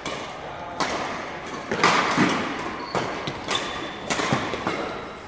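Badminton rackets striking a shuttlecock in a fast doubles rally: about eight sharp hits, each under a second after the last, each with a short echo in the hall.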